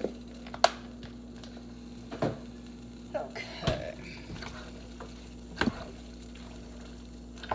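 A spoon stirring stew in a metal cooking pot, knocking sharply against the pot several times over a steady low hum.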